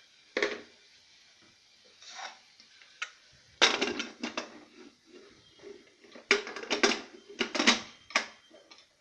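Metal utensils clinking and knocking against a steel pressure cooker, in several clusters of sharp clinks. The loudest come about halfway through and near the end.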